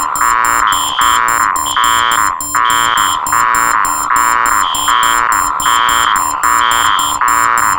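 Four electronic alarms sounding together: loud, overlapping beeping and buzzing tones at different pitches, with a pulsing beep about twice a second, a higher tone cutting in and out about once a second, and rapid high beeps above.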